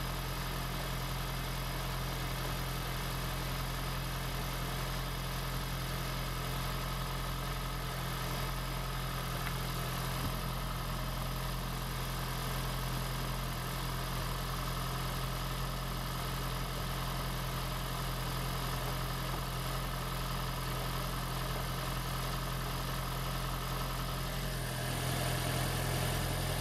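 Newly swapped 2016 Prius 1.8-litre four-cylinder engine (2ZR-FXE) running steadily on its first test runs. About 25 seconds in its note changes and gets a little louder.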